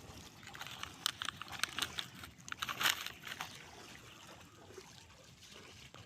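Discarded plastic rubbish crinkling and crackling as it is handled: a run of sharp crackles, loudest about three seconds in, then quieter.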